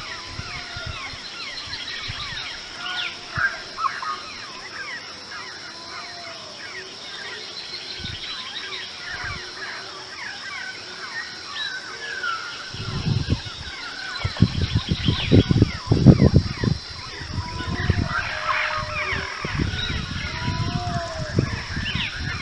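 Outdoor waterside bird chorus: many small birds chirping and calling over one another, with repeated lower arching calls and a steady high hum. From about thirteen seconds in, bouts of low rumbling noise come in, loudest around sixteen seconds.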